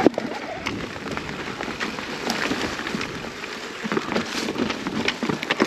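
Marin Alpine Trail E2 electric mountain bike rolling over rough singletrack: steady tyre noise on dirt, with frequent small rattles and knocks from the bike and a sharp knock right at the start.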